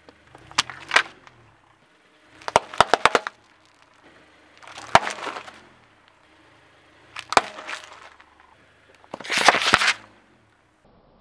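Car tyre crushing objects on asphalt: five separate bursts of cracking, crunching and popping, about two seconds apart, the last one the loudest and longest.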